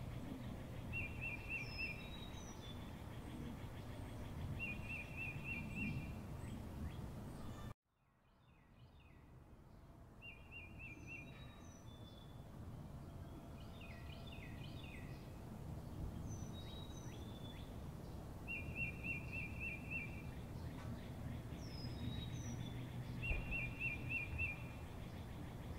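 Outdoor nature ambience of birds calling over steady low background noise: a short rapid trill repeats every few seconds, with scattered high chirps between. About eight seconds in, the sound drops out completely and fades back up over a couple of seconds.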